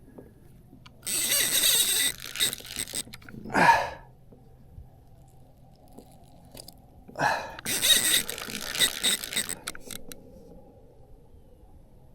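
Spinning fishing reel buzzing in two spells of about two seconds each under the pull of a large hooked catfish, with a short grunt from the angler in between.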